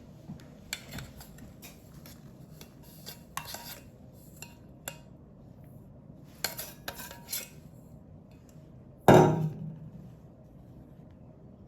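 Kitchen utensil clinking and scraping against a baking pan as streusel topping is spread, in short scattered clicks, then one loud clank about nine seconds in that rings out briefly.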